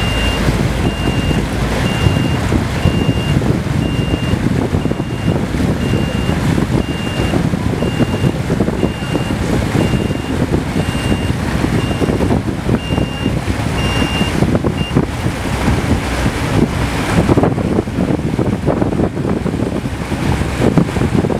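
Tour boat under way: its engine runs steadily under wind and rushing water. A high electronic beep repeats a little faster than once a second and stops about two-thirds of the way through.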